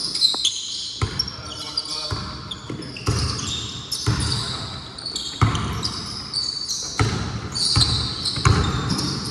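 Basketball bouncing on a gym floor about once a second, with many short high squeaks of sneakers on the court and a few shouts of players.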